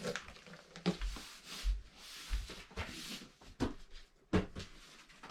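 Irregular light knocks, clicks and rustling, with a few dull low thumps, like household objects being handled.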